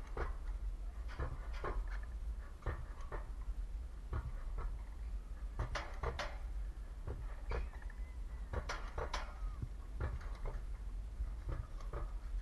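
Alpine coaster sled running down its steel rail track: a steady low rumble with irregular clacks and rattles, a little under two a second.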